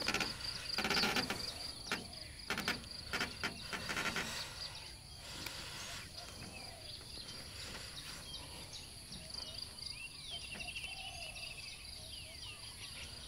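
Rural outdoor ambience: insects trilling steadily on a high pitch, with birds chirping here and there, clearest near the end. A few scattered knocks and rustles come over the first four seconds.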